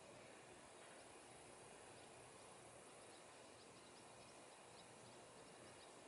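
Near silence: faint open-air ambience with a string of short, faint, high chirps, several a second, coming more often in the second half.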